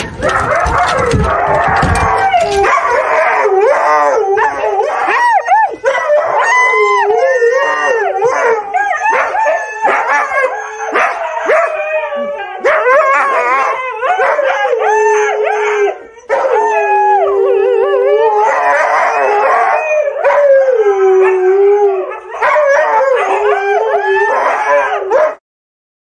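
Huskies howling and yowling together in long, wavering, overlapping calls that rise and fall in pitch, with a low rumble under them for the first two seconds. The howling cuts off suddenly near the end.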